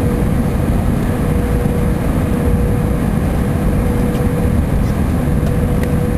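Airbus airliner on final approach, fully configured for landing: a steady rush of engine and airflow noise, with a steady mid-pitched hum running through it.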